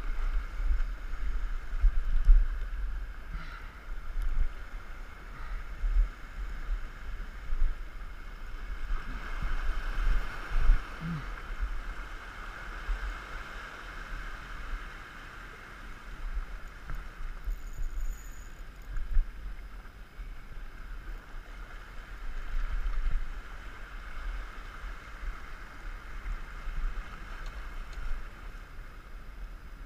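Small waves washing and splashing over coral rock at the water's edge, rising and falling, with wind buffeting the microphone as a low rumble.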